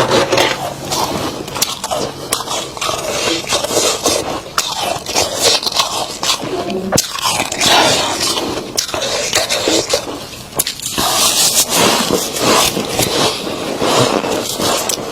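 Freezer frost being crunched and scraped close to the microphone: a continuous, dense run of crisp crackles and scrapes with uneven swells.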